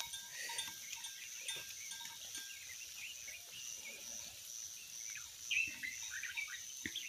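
Faint calls from livestock in a pasture, loudest about five and a half seconds in, over a steady high-pitched background tone.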